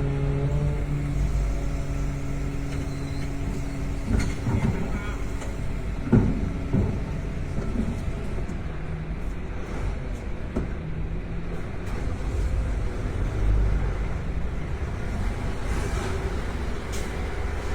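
Car driving through town streets: low engine and road rumble, with the engine note easing off about a second in. A few short knocks or bumps come between about four and seven seconds in, the loudest near six seconds.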